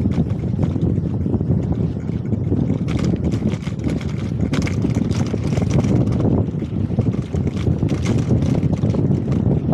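Wind buffeting the microphone of a camera riding along on a moving bicycle: a steady low rumble, with scattered small clicks and rattles throughout.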